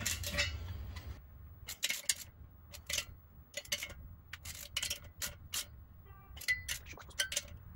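Hand ratchet wrench clicking in short, irregular runs as the cylinder nuts of a snowmobile engine are tightened, with light metal knocks of the socket and extension.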